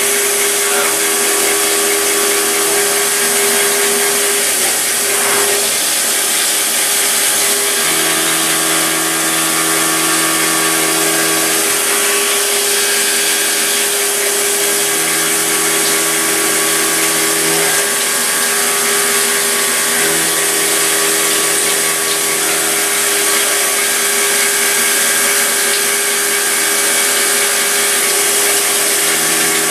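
CNC milling machine cutting metal with an end mill under coolant spray: a steady spindle-and-cutting hiss runs throughout. Over it, steady machine tones switch on and off every few seconds as the stepper-driven axes move.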